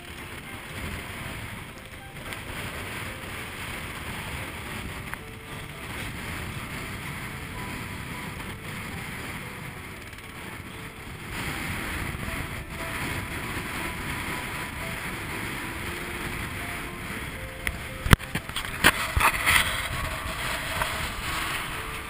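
Wind buffeting the microphone and water rushing and breaking along the hull of a Swan 48 sailing yacht driving through rough seas in a force 7 wind. A few sharp knocks near the end are the loudest sounds.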